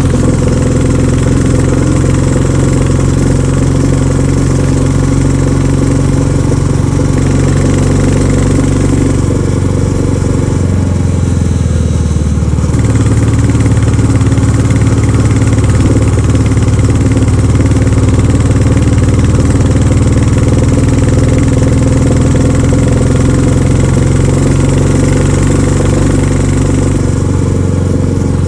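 Royal Enfield Classic 350's single-cylinder engine thumping through its stock exhaust while riding. The engine note drops for a couple of seconds about ten seconds in, then picks up again a little louder.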